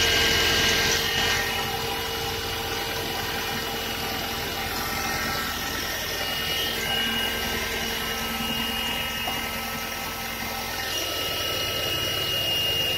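Mazda 6 GG's 2.0-litre LF four-cylinder petrol engine idling steadily, a smooth even running note with a faint constant whine on top.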